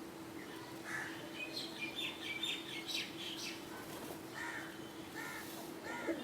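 Birds calling: a quick run of high chirps about a second and a half in, then a few shorter, harsher calls near the end, over a steady low hum.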